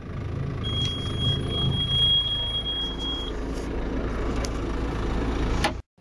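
Tractor engine running steadily, heard from inside the cab, with a high steady warning beep held for about two and a half seconds from about half a second in and a few light knocks of the camera being handled. The sound cuts off suddenly near the end.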